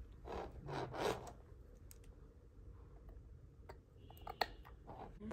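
Hands handling two-pin LED capsule bulbs and a metal lamp socket cluster: rubbing and scraping, with a few small clicks and one sharp click about four and a half seconds in as the bulbs' pins are pushed into the sockets.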